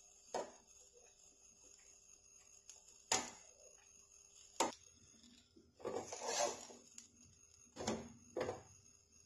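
Spoon on a tawa while a paratha is oiled and turned: three sharp taps spread through the first five seconds, a brief scraping rush about six seconds in, then two knocks as the paratha is flipped.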